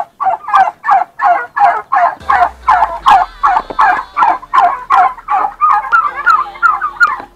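Domestic turkeys calling in a fast, unbroken series of short calls, about three or four a second.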